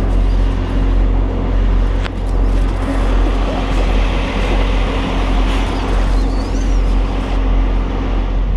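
Kenworth W900 semi-truck's diesel engine running, a steady low drone with a constant hum, heard from inside the cab.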